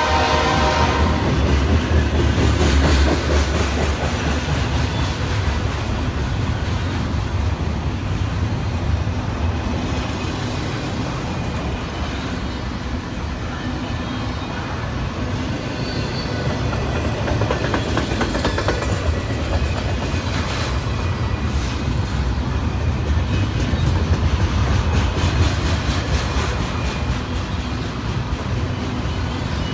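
Train passing close by: steady clatter of wheels over the rail joints over a deep rumble. The tail of its horn dies away about a second in.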